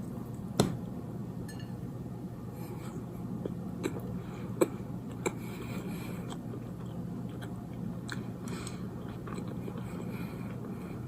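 Close-up chewing of a cinnamon roll: soft wet mouth sounds with a few sharp clicks, the loudest about half a second in, over a steady low hum.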